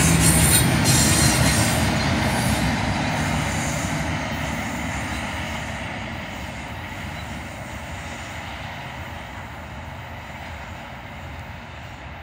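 Double-stack container well cars of a freight train rolling past on the rails. The sound fades steadily as the end of the train moves off into the distance.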